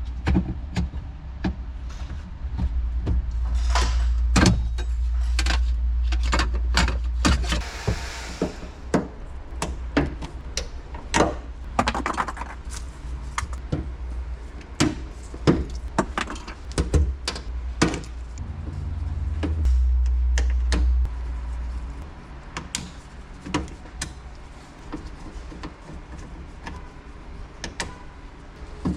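Hand tools and plastic trim being worked on a car's trunk: irregular clicks, knocks and rattles, with a heavy low rumble through the first several seconds and again briefly past the middle.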